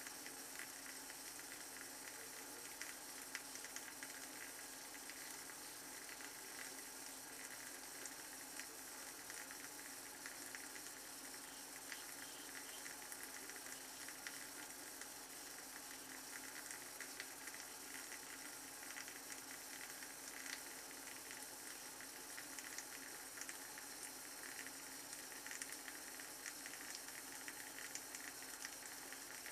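Shavette straight razor with a pre-cut half blade scraping through lathered stubble: faint crackling strokes over a steady hiss.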